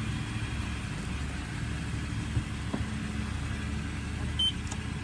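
A steady low mechanical rumble, with a short high beep about four and a half seconds in.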